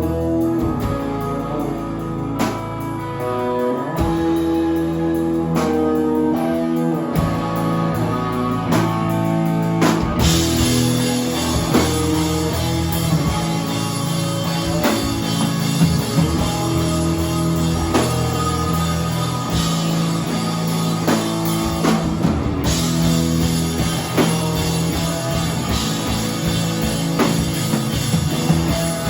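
Rock band playing live: guitar and bass riff for the first ten seconds or so, then the drums and full band come in and keep going.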